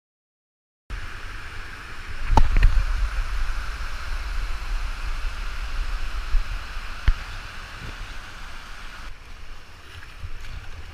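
Rushing whitewater of a river rapid with wind buffeting the microphone, starting about a second in after silence. A couple of sharp knocks, the first about two seconds in and another about seven seconds in.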